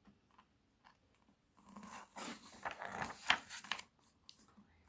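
A page of a paperback picture book being turned: paper rustling and swishing for about two seconds, starting a little over a second and a half in, after a few faint touches of hands on the paper.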